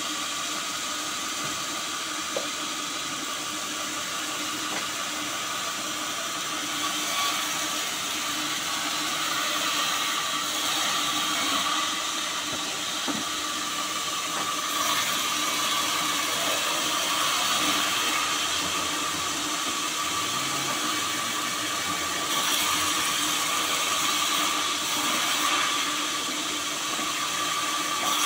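Large vertical bandsaw running steadily, its blade cutting through a sonokeling (Indian rosewood) log: a constant whine over a hiss, growing louder in stretches as the blade bites into the wood.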